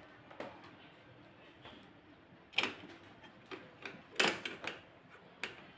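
Scattered small sharp clicks and ticks of a hand screwdriver and screws against the metal frame of an HP LaserJet P1102 laser printer as a screw is driven in; the loudest clicks come a little before halfway and again about two-thirds of the way through.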